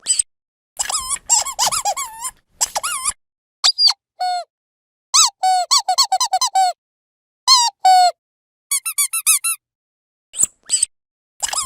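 Rubber dog squeaky toy being squeezed in quick runs of short, high squeaks, several groups with brief silent pauses between them, some squeaks held a little longer.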